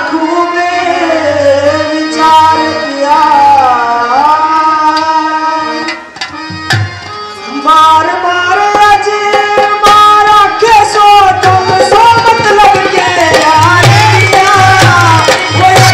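Haryanvi ragni folk song: a singer drawing out long, bending notes over a steady hand-drum rhythm. The music drops away briefly about six seconds in, then comes back in full.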